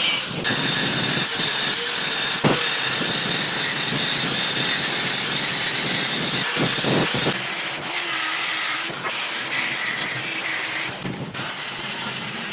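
Metalworking on a steel gear shaft: a steady, loud hissing machine noise that changes abruptly about seven seconds in to a quieter, different tool sound.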